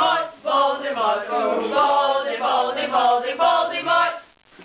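Several voices singing together without instruments, a held, chant-like group song that stops about four seconds in.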